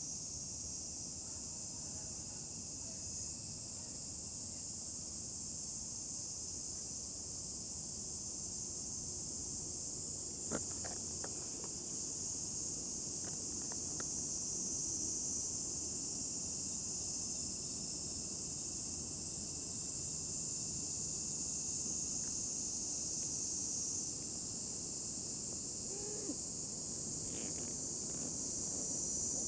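Steady, high-pitched chorus of insects, unbroken throughout, with one faint knock about ten seconds in.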